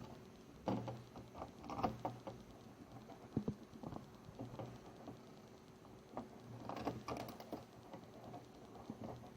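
Small irregular clicks and taps of screws and a screwdriver being worked while fastening an amplifier's back cover, with a few louder knocks among them.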